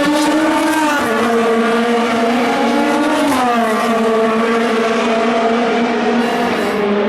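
Endurance race car engine running hard under acceleration. Its note drops suddenly at upshifts, about a second in and again about three and a half seconds in.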